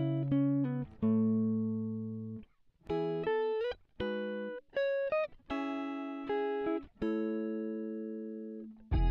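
Background guitar music: single melodic notes picked one at a time and left to ring out, with a couple of notes bent upward in the middle.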